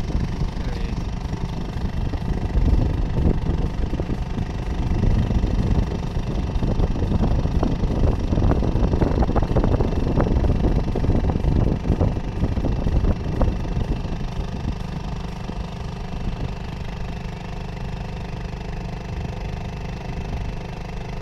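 Small boat's outboard motor running steadily at low speed, with a rougher rushing noise swelling through the middle.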